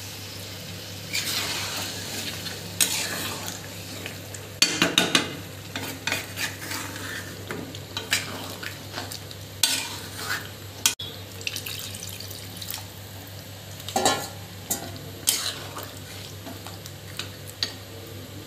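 Metal spatula stirring chicken curry in an iron kadai, with irregular clinks and scrapes against the pan over a faint sizzle of the simmering gravy.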